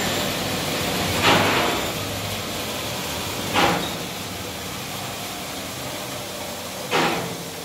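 Ribbon blender running with powder inside: a steady machine noise with a low hum that fades after about two seconds, and three short swishes.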